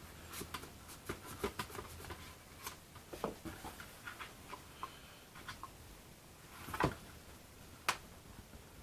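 Scattered light clicks and taps of small objects being handled, with a louder knock about seven seconds in and a sharp click a second later.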